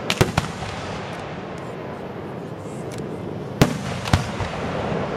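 Aerial fireworks shells bursting: a quick run of three bangs right at the start, then two more a little after three and a half and four seconds in, over steady background noise.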